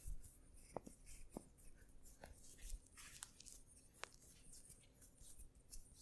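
Faint, close-up massage sounds: hands rubbing over skin and hair, with scattered small clicks and soft rustles at an uneven pace.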